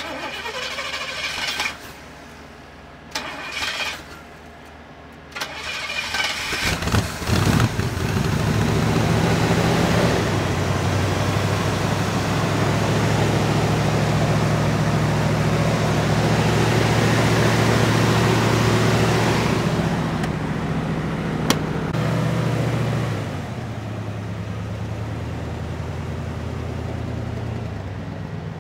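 1966 Corvette's 327 cubic-inch, 300 hp small-block V8 with factory side pipes, cranked by the starter in three short bursts and catching about seven seconds in. It then runs at a steady fast idle, and about two-thirds of the way through it drops to a lower, quieter idle.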